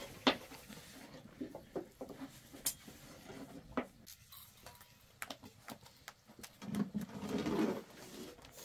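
Scattered light taps and clicks from hand work with flatbread dough: a thin rolling stick against dough, board and iron griddle. A louder rustling stretch comes about seven seconds in.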